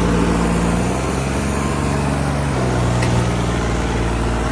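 Tractor engine running steadily, its pitch dropping about a second in and shifting again past the middle as the engine speed changes.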